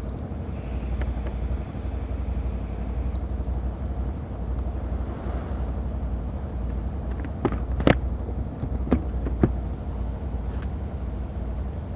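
Can-Am Outlander ATV engine running steadily at trail speed, with several sharp knocks about two-thirds of the way in.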